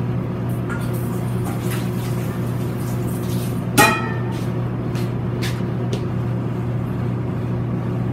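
Steady low mechanical hum of kitchen equipment, with a few light clicks of kitchenware and one sharp clink with a short ring about four seconds in.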